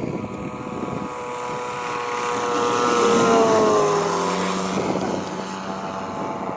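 Radio-controlled scale warbird model's engine running hard in a flyby. It grows louder to a peak about three seconds in, then drops in pitch as the plane passes and pulls away.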